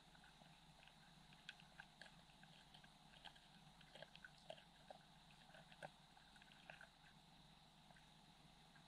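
Faint underwater sound of fish feeding over a bed of pellets: scattered soft clicks and crackles, thickest in the middle, over a steady faint hum.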